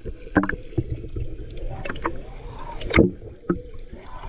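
Muffled water sloshing and gurgling picked up by a camera held underwater while snorkelling, with a few irregular knocks and clunks, the loudest about three seconds in.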